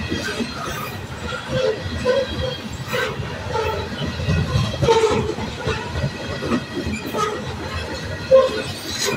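Freight train of covered hopper cars rolling past close by: a steady rumble and clatter of wheels on rail, with irregular clanks and short squeaks from the wheels and cars.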